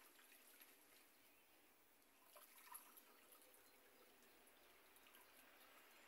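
Faint water sloshing and dripping as a chicken carcass is dunked and lifted in a scalding tank before plucking, with a few small splashes about halfway through.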